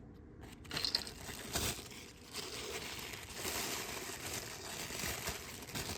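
Plastic packaging crinkling and rustling with small clicks as a blind-box toy figure is unwrapped.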